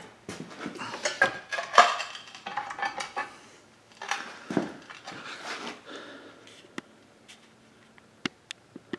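Irregular clinks and clatter of metal tools and parts being handled on a workbench beside a mini lathe, thinning out about two-thirds of the way through to a few isolated sharp ticks.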